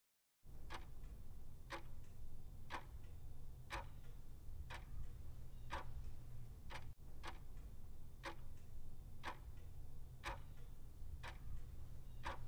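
Countdown-timer ticking sound effect, one sharp tick about every second, starting about half a second in over a faint low hum.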